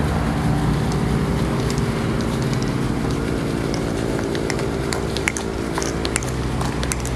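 A steady low machine hum, with scattered faint clicks and ticks over it.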